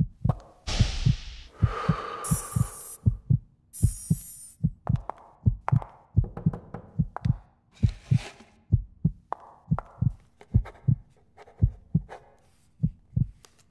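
Heartbeat sound effect: a steady run of deep double thumps, about one pair a second, with a few short bursts of hiss in the first few seconds.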